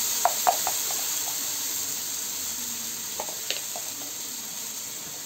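Potatoes sizzling in hot oil in a kadai: a steady hiss that slowly dies down, with a few sharp clicks near the start and again about three seconds in.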